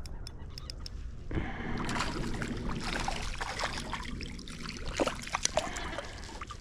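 A few light clicks at the start, then water splashing and sloshing from about a second and a half in, with a few louder splashes near the end.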